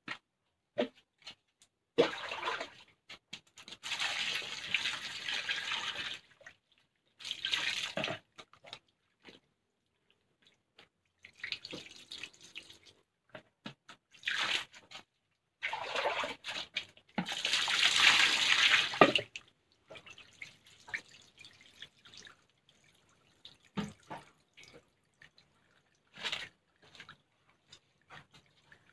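Water poured from a plastic dipper over cut pumpkin pieces in a stainless steel bowl, rinsing them. The water splashes in a series of separate pours with short gaps between them, and the longest and loudest pour comes about eighteen seconds in.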